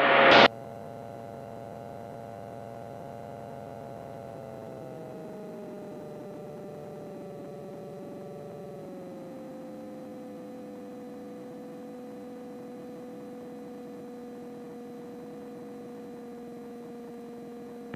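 Steady whine with a faint drone beneath it, heard through a light aircraft's intercom audio. Its pitch drops in two steps, around four and nine seconds in, then holds, as the engine is brought back to a lower power setting in the landing pattern.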